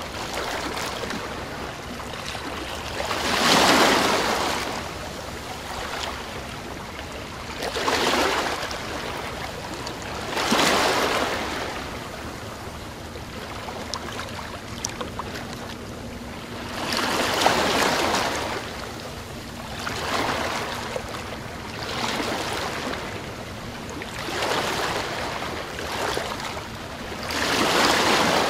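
Ocean waves washing in, each surge swelling and fading every few seconds over a steady rush of water.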